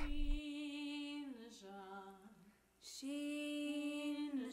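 A woman singing unaccompanied in long held notes: a first note stepping down about a second in, a brief break, then another long note.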